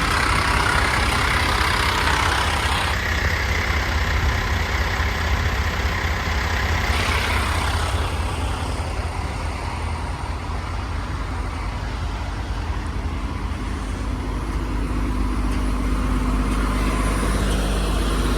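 Steady low rumble of an idling vehicle engine, with a hiss that is louder for the first several seconds and then eases.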